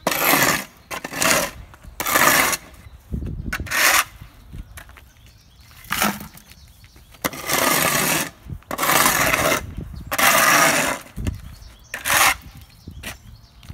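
Shovel blade scraping dirt and gravel off asphalt along a curb, a series of scrapes at uneven intervals each lasting about half a second to a second, with the debris tipped into a plastic bucket.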